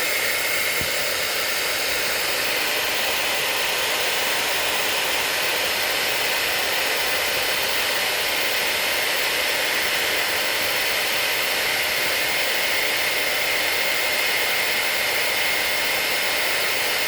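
Handheld hair dryer running steadily: an even rush of blown air with a faint steady high tone over it.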